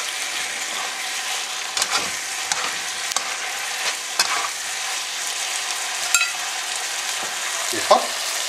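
Sauce-glazed fried chicken pieces sizzling in a hot wok as they are stirred, a steady hiss broken by occasional scrapes and knocks of the utensil against the pan, the loudest near the end.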